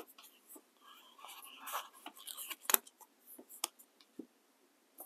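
Paper sticker sheets rustling and a sticker being peeled off and pressed onto a planner page, with a few light clicks and taps of fingers and fingernails on paper; the sharpest click comes about halfway through.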